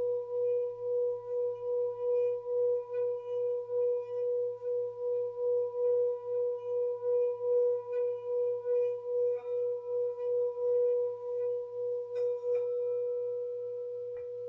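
Tibetan singing bowl sounding one steady, sustained tone that wobbles in level about three times a second. About twelve seconds in, the wobble stops and the tone holds smoothly, with a few faint clicks.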